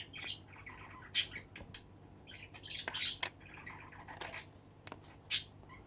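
A bird chirping in the background, short sharp high calls scattered irregularly, a handful over a few seconds.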